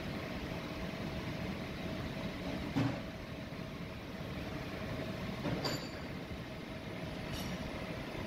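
Machine spindle running a twist drill through a cast iron flange, a steady mechanical noise with a faint steady whine. Two short knocks about three seconds and five and a half seconds in.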